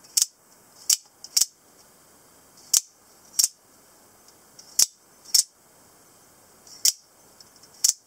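Scarab D/E 2704 out-the-front automatic knife being worked repeatedly, its spring-driven double-edged blade snapping out and back. It gives nine sharp clicks, several of them in quick pairs about half a second apart.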